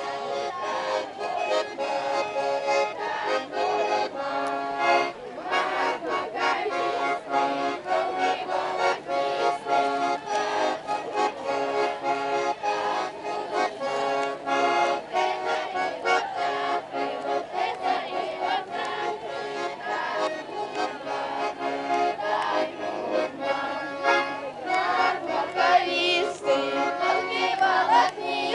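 Accordion playing a traditional Russian folk dance tune with a steady beat.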